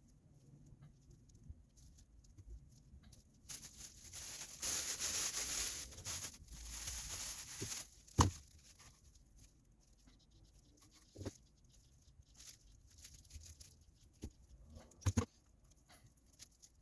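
Scratchy rustling and scraping for about four seconds, then a sharp knock and two lighter knocks a few seconds apart: small metal fishing-reel parts being handled and set down on a work surface.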